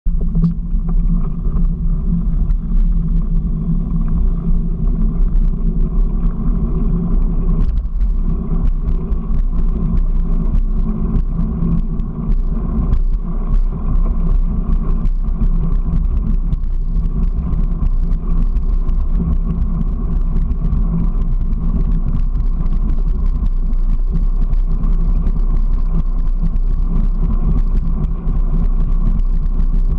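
Steady rumble of a small vehicle rolling along a concrete path, picked up through the mounted camera, with many small knocks and rattles from bumps and joints in the surface.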